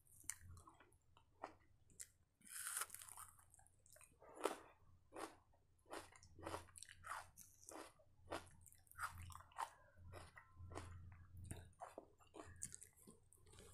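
Quiet close-up chewing and mouth smacks of someone eating soft dosa with chicken gravy by hand, heard as a string of short, irregular clicks.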